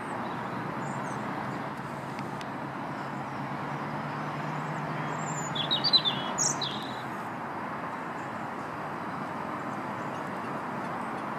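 A few quick, high chirps from a small bird about six seconds in, over a steady outdoor background hiss.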